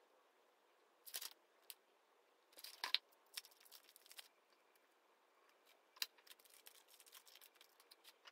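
Soft paper rustles as pages of a large paperback textbook are turned, the loudest about a second in and around three seconds, followed by a run of small crinkles and clicks as a pad of sticky tabs is handled.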